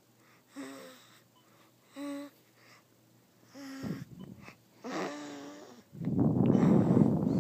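Sleeping baby snoring: short, whistly, wheezy breaths about every second and a half, then near the end one long, louder rattling snore.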